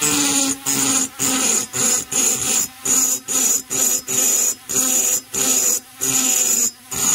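High-speed rotary grinder cutting the aluminium transfer ports of an Echo CS-670 chainsaw cylinder with a small burr. It runs as a high-pitched whine in short strokes, about two a second, louder each time the burr bites the port wall and dropping between strokes.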